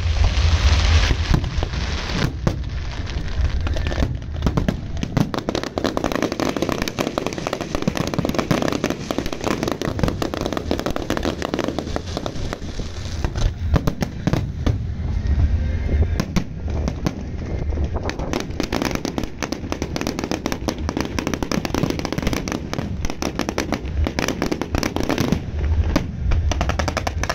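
Fireworks display at close range: a continuous, dense barrage of bangs and crackling over deep booms.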